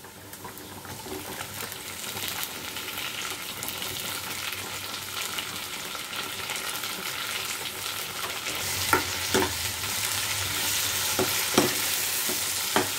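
Chopped tomatoes and onions sizzling in hot oil in a non-stick kadai, the sizzle building over the first few seconds. From about nine seconds in, a steel ladle stirs them, with a few scrapes and knocks against the pan.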